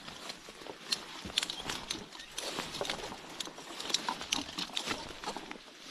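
Footsteps pushing through grass and undergrowth: irregular crunches and crackles over a steady rustling of leaves and stems.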